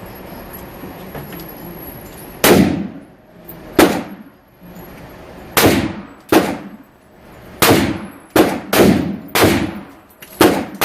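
A 7.62x39 AR-15 with a 10.5-inch barrel firing nine semi-automatic shots at an uneven pace, starting about two and a half seconds in. Each shot is a sharp report that trails off.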